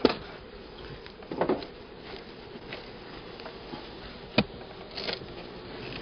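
Honeybees buzzing steadily around an opened hive, with a few sharp knocks from the wooden hive boxes being handled.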